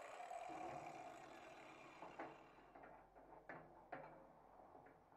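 Angle grinder spinning down after being switched off, its sound fading away over the first couple of seconds. Then a few light metal knocks as the jackhammer chisel is handled in the bench vise.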